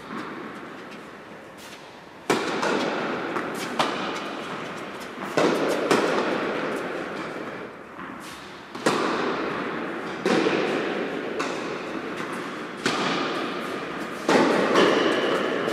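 Tennis ball hit back and forth with racquets on an indoor hard court. Sharp pops of strings and bounces come about every one and a half seconds, each trailing off in a long echo through the hall.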